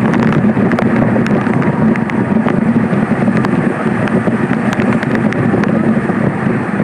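Steady road and engine noise of a vehicle driving, heard from inside the cabin: a constant low drone under a rushing hiss, with scattered small ticks throughout.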